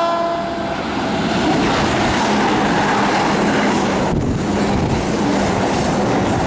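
Keihan 1000-series seven-car electric train passing through the station at speed close by: a loud, steady rush of wheels and running gear. The tail of its horn fades out right at the start.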